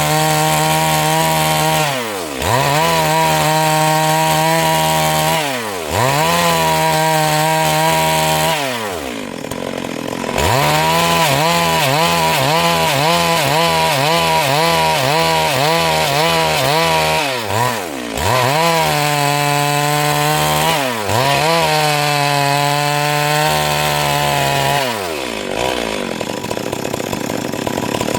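Stihl MS 382 two-stroke chainsaw running at high revs while cutting Siris wood into boards. The engine note drops and climbs back about five times and wavers in pitch under load in between.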